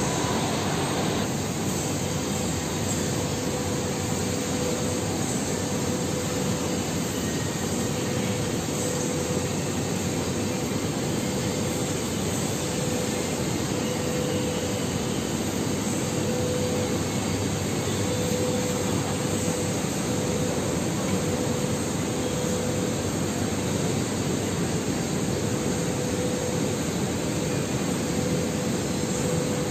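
Steady mechanical drone of machinery running, with a faint constant hum.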